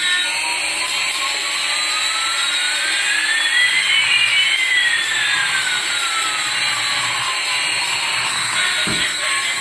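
Toy jet-engine sound: a steady hiss with one whistle slowly rising in pitch and another slowly falling, crossing midway. A short thud comes near the end.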